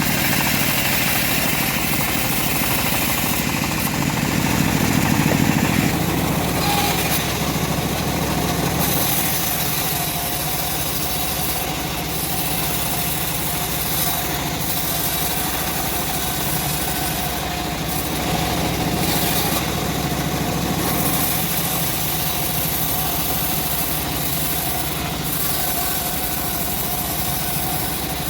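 Homemade bandsaw sawmill running steadily, its motor drone carrying through as the blade cuts a teak log, with a high hiss that comes and goes.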